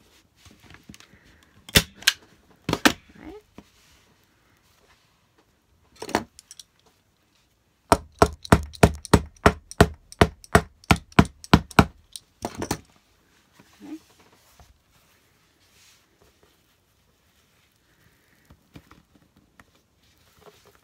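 Arrow TT21 manual staple gun driving staples through fabric into a wooden board: a few separate sharp shots, then a quick run of about a dozen shots in the middle.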